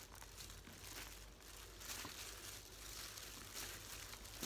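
Disposable plastic gloves crinkling and rustling faintly in uneven bursts as hands toss and squeeze sliced tomato and onion on a banana leaf.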